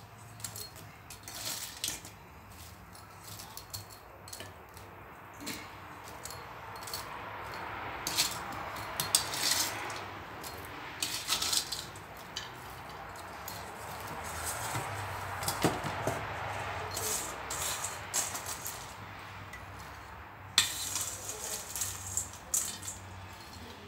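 Metal tongs clinking and scraping against a stainless steel bowl as crisp battered fried shrimp are picked out and tipped onto a plate, in scattered sharp clicks.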